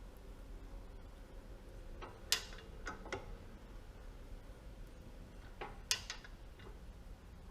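Two small clusters of light clicks and clinks, about three each, a couple of seconds apart, as broaching tooling and parts are handled and set up at an arbor press.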